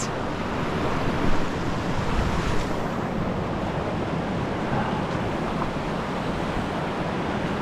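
Stream water running steadily over rocks, a continuous rush.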